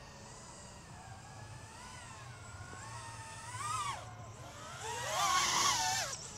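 BetaFPV Pavo 35 3.5-inch cinewhoop quadcopter's brushless motors whining, the pitch rising and falling with the throttle. It grows louder twice as it flies in close, then cuts off suddenly near the end as it lands.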